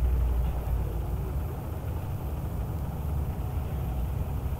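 Steady low rumble of machinery, with no clear starts or stops.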